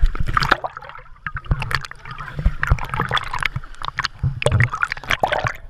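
Sea water sloshing, gurgling and splashing around an action camera bobbing at the surface, its lens dipping in and out of the water, with many small uneven splashes.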